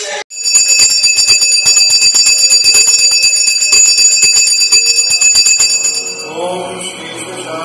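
Puja bell rung rapidly and continuously for an aarti, the quick strikes merging into a steady high ringing. About six seconds in the ringing fades and a chanted mantra comes up.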